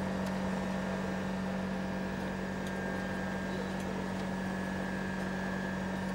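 Steady machine hum: a constant low drone with a thin high whine above it and a few faint clicks.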